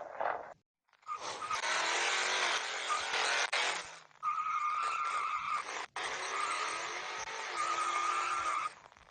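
Car tyres screeching in skids, as a car doing doughnuts would sound, with a steady high squeal over the rough screech. It comes in several spliced stretches that cut off and restart abruptly.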